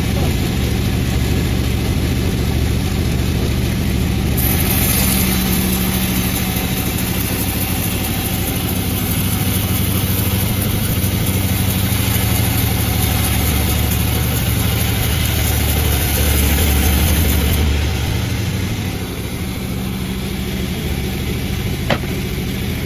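Engine of the wood-sawing machine running steadily, its pitch shifting a little a few seconds in and again near the end. One short sharp click sounds just before the end.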